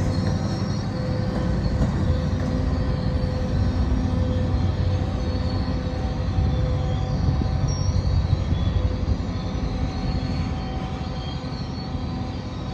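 Diesel-hauled passenger train running by, with a steady engine drone over rail rumble and a faint high wheel squeal. It fades a little near the end.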